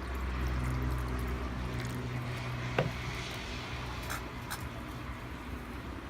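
Wood campfire crackling with a light hiss, one sharp loud pop about three seconds in and two softer snaps a little later. A low steady rumble runs underneath for the first half.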